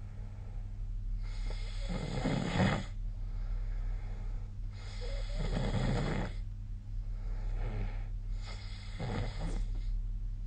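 A person snoring in sleep: three rough snores, each about a second and a half long and about three and a half seconds apart, over a steady low hum.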